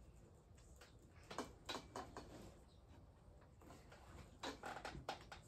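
Near silence with a few faint clicks and taps from a small plastic Easter egg being handled and turned over in the hands, a cluster of them near the end.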